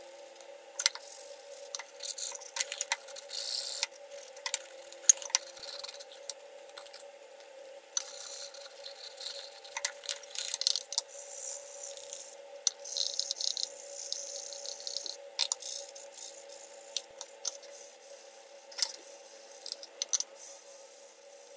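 Wooden cutting board being hand-sanded with sandpaper, 60 grit and then 120 grit: irregular back-and-forth rasping strokes in bursts, with scattered sharp knocks and clicks from the board being handled. A steady hum runs underneath.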